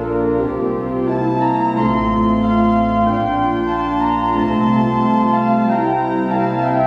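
Organ music: slow held chords over deep bass notes, the harmony changing every second or so.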